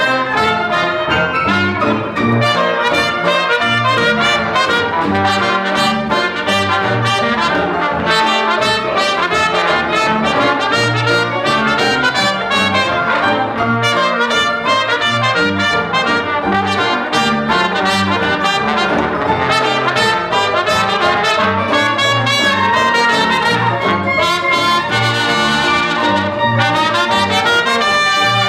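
Dixieland jazz band playing: cornet, clarinet and trombone play together over string bass and piano.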